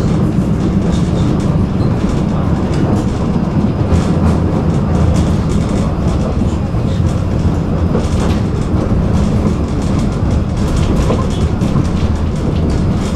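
Tram running along its rails: a steady rumble of wheels on track, with faint clicks now and then.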